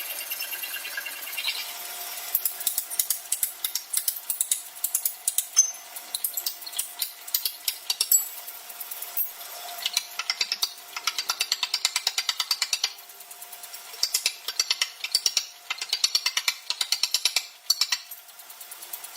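Steel being forged by rapid machine hammering, many sharp metallic blows a second in long runs with a faint ring, broken by a couple of short pauses.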